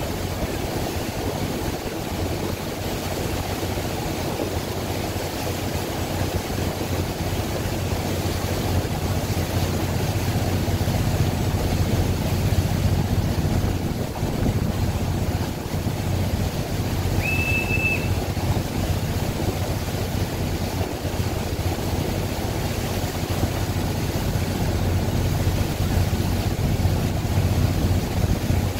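Passenger river boat underway, heard from on board: a steady low engine rumble mixed with rushing water, getting somewhat louder about a third of the way in. About two-thirds of the way through comes one brief, flat, high-pitched tone.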